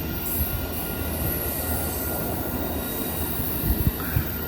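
An Amtrak passenger train's coaches rolling past, with a steady rumble of wheels on rail. A few low thumps come near the end.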